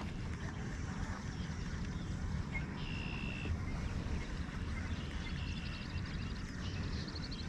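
Kayak being paddled across calm water, heard through an action camera's mic as a steady low rumble of wind and handling noise. A couple of faint, short, high calls come through about three and about five and a half seconds in.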